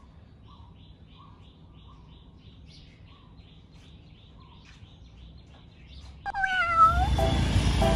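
Faint bird chirps repeating over quiet background, then about six seconds in a single loud cat meow that dips and rises in pitch, followed by music starting.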